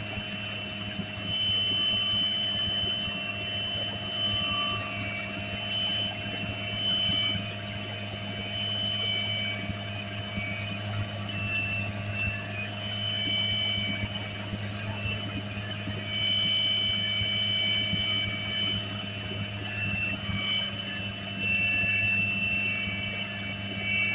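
Helicopter in flight heard from inside the cabin: a steady low drone of rotor and engine, with a high steady whine above it.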